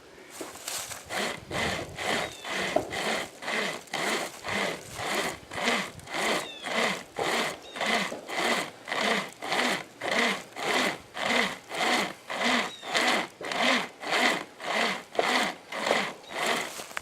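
Sportsman pocket chainsaw, a hand-pulled chain with a handle at each end, rasping back and forth through an oak trunk in steady, even strokes, about two a second.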